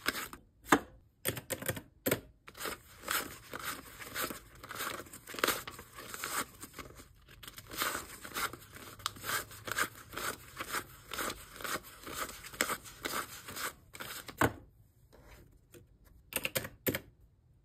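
Paper US dollar bills being counted by hand, each note flicked over with a crisp rustle in quick succession. The counting stops about 14 seconds in, and a few light taps follow near the end.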